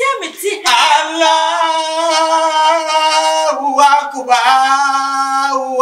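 A man's voice chanting a Muslim prayer in long, loud held notes, stepping down in pitch about halfway through.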